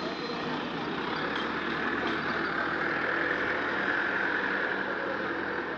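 Steady factory workshop background noise: an even hiss with a faint low machinery hum under it, swelling slightly partway through.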